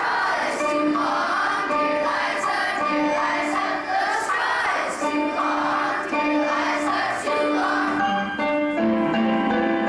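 Elementary school children's choir singing a song with instrumental accompaniment of held notes.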